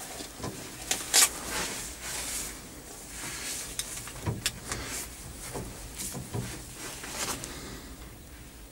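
Scattered knocks, clicks and rustling inside a tractor cab, the sharpest knock about a second in, fading toward the end.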